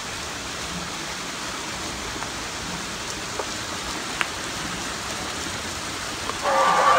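Steady rush of water from an artificial waterfall and stream, with a few faint clicks. About six and a half seconds in, a man starts whooping and cheering loudly, much louder than the water.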